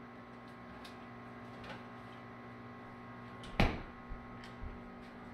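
Steady electrical hum of a kitchen appliance, with a few faint ticks and one sharp knock about three and a half seconds in.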